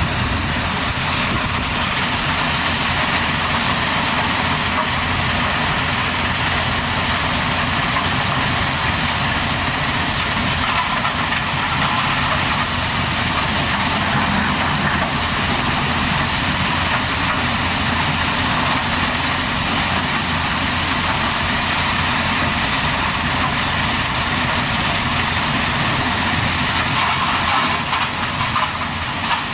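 Diesel engine of a backhoe or excavator running steadily.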